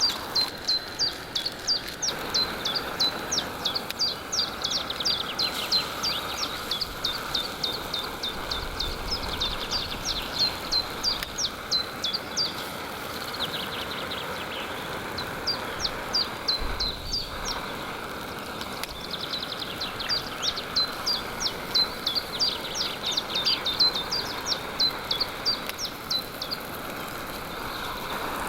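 A songbird in a spring pine forest singing long runs of short, high, downward-sweeping notes, several a second, with a short break about halfway through, over steady background noise.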